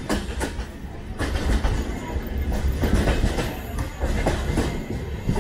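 Passenger train running along the track, heard from the coach: a steady heavy rumble with the wheels clattering over rail joints in irregular clicks.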